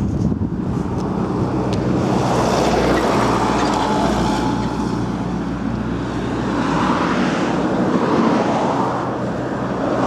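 Road traffic: cars passing on a road, their tyre and engine noise swelling and fading twice, with wind buffeting the microphone.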